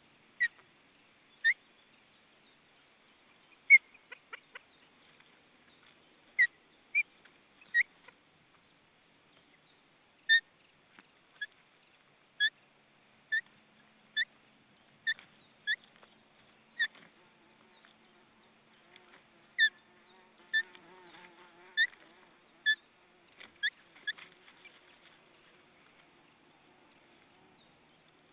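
Ospreys at the nest giving short, sharp whistled chirps, about twenty of them roughly a second apart, which stop a few seconds before the end: the calling that goes with a fish delivery coming in to the nest.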